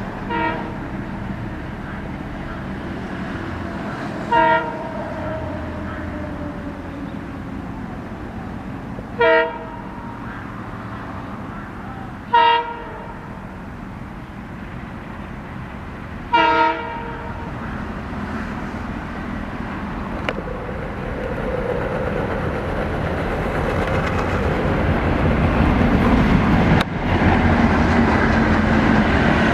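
An ALCO diesel locomotive's horn gives four short blasts a few seconds apart as the train approaches. After that the locomotive's engine and the rolling train grow steadily louder as it draws near.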